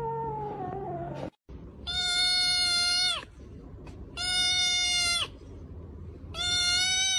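A kitten's meow falling in pitch runs out in the first second. Then a cat gives three long meows, each about a second long, held at a steady pitch and dropping at the end.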